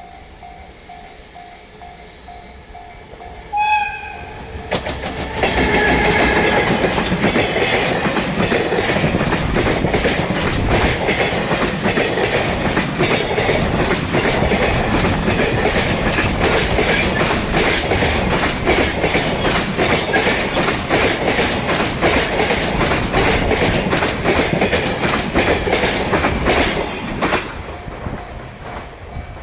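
A level-crossing warning bell rings in a repeating pattern, then a short horn blast sounds from a JR Freight EF210 electric locomotive about three and a half seconds in. The locomotive and its 18 container wagons then pass close by for over twenty seconds, with loud steady running noise and rhythmic wheel clatter over the rail joints. The train noise fades near the end and the crossing bell is heard again.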